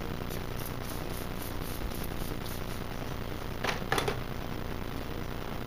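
Steady background hiss, with two short papery rustles close together a little under four seconds in from the decal's transfer tape being handled as it comes off the hood.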